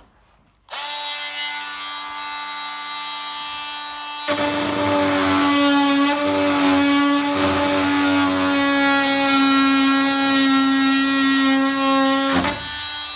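Oscillating multi-tool switched on about half a second in and running steadily; from about four seconds in its blade bites into a 3 mm polycarbonate sheet, and the sound grows louder and rougher as it cuts. It stops briefly near the end.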